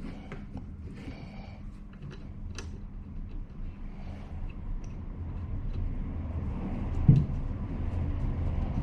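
Small clicks and scrapes of a wiper-arm nut being turned by hand onto a rusty wiper spindle, over a steady low rumble that slowly grows louder. A single sharper knock comes about seven seconds in.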